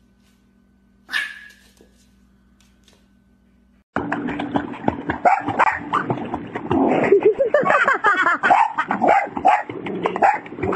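One short, sharp sound about a second in, then from about four seconds a dog barking again and again over water splashing.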